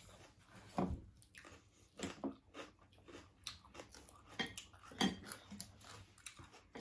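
Close-up mukbang eating sounds: irregular chewing and biting with small crunchy clicks, and a few louder bites about a second, two seconds and five seconds in.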